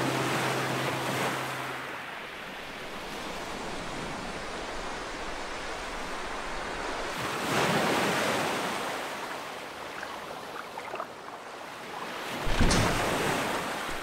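Ocean surf: waves breaking and washing over rocks as a steady rushing, swelling about halfway through and again with a louder crash near the end.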